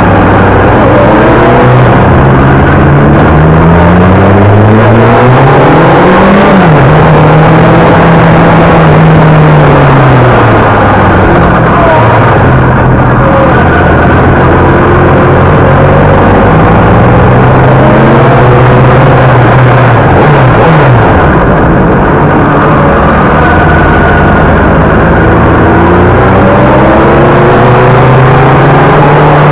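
Honda CBR600RR's inline-four engine running at low road speed, heard from on the bike with wind noise over the microphone. The revs rise and fall several times with the throttle and gear changes, with other motorcycles' engines alongside.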